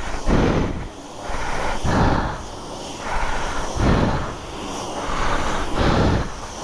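Self-service jet-wash lance spraying a motorcycle: a loud hiss of water that swells and fades about every two seconds as the jet sweeps over different parts of the bike.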